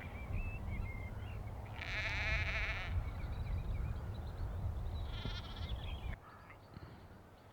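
Sheep bleating twice: a long wavering bleat about two seconds in and a shorter one about five seconds in. Faint bird chirps sound between them over a low rumble that stops near the end.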